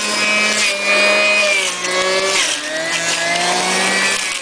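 Electric centrifugal juicer's motor running with a steady whine, its pitch sagging briefly near the middle and climbing back.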